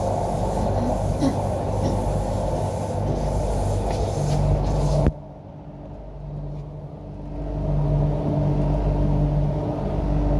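MTR Island Line Q-Train heard from inside the car as it runs through the tunnel: a steady rumble with a low motor hum. About halfway through, the sound drops suddenly and then builds back up over a few seconds.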